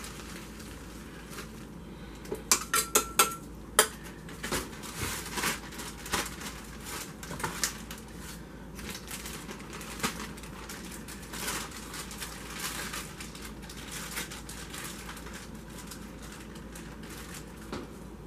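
Metal kitchen tongs clicking and clattering, with a quick run of sharp clicks about two to four seconds in, amid the rustle of a plastic zip-top bag as coated chicken thighs are pulled out, shaken off and set in a glass baking dish.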